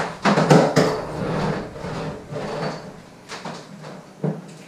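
Knocks and rubbing from a refrigerator being handled: a loud clatter about a second long at the start, softer scuffing after it, and two sharp knocks near the end.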